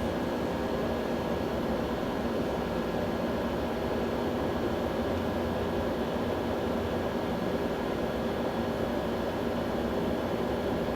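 Steady mechanical drone with a few faint steady tones mixed in, even in level throughout.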